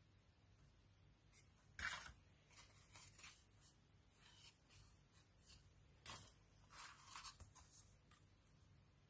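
Near silence broken by faint rustles and brushes of paper cards being handled, the loudest about two seconds in and a few more around six to seven and a half seconds.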